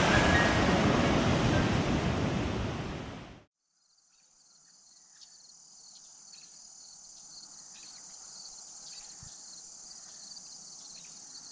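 A loud rushing noise cuts off abruptly about three seconds in. After a brief silence, a steady, high-pitched chorus of summer insects fades up and holds.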